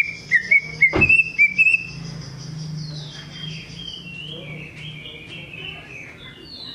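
Male green leafbird (cucak ijo) singing: a quick run of loud, sliding chirped whistles for about two seconds, then a softer, drawn-out warbling of whistled notes. A single sharp click about a second in.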